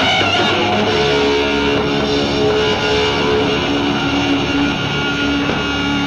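Heavily distorted electric guitar in a heavy metal passage, playing long held notes.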